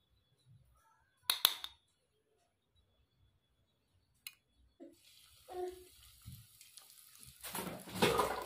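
A single sharp clink of a utensil against kitchenware, a small click, then water running from a kitchen tap into a sink, getting louder near the end.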